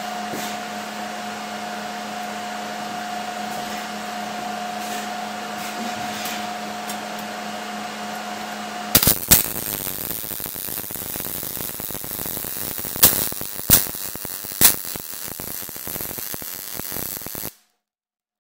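A steady electrical hum, then about halfway through a MIG welding arc strikes on galvanized sheet steel (.030 ER70S-6 wire, C-25 gas) and runs for about eight seconds with a steady crackle and several loud pops, cutting off suddenly near the end.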